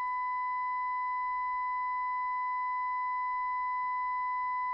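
Steady 1000 Hz calibration tone played through an artificial mouth (the speaker in a head simulator), with weaker overtones above it. It is the 5-second stimulus used to measure and set the mouth's output sensitivity.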